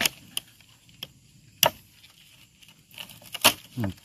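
A knife cutting through the crackling skin of barrel-roasted pork belly: a few sharp crunches and cracks, the loudest about one and a half and three and a half seconds in. This is the sound of very crisp skin.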